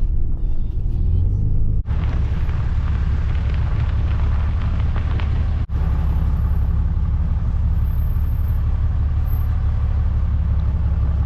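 Pickup truck driving, a steady low rumble of engine and road noise.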